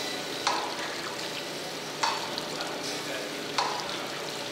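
Thompson surface grinder with flood coolant grinding a cast-iron straight-edge casting: a steady wet hiss of wheel and coolant, with a sharp rasp about every one and a half seconds as the reciprocating table carries the casting under the wheel.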